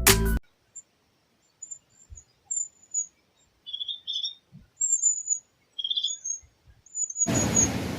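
Small birds chirping in short, high, repeated calls against a quiet background. Near the end, a loud steady rushing noise cuts in.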